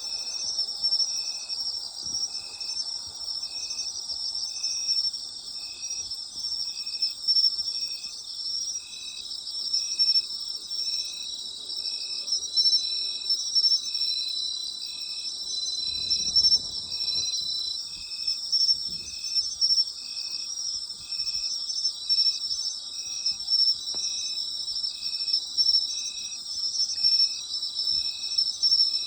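Autumn night insects singing in a chorus: dense, continuous high trilling, with one insect calling a short, evenly spaced chirp roughly once a second.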